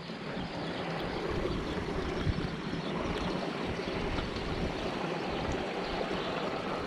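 Steady rush of running water, an even hiss without pauses.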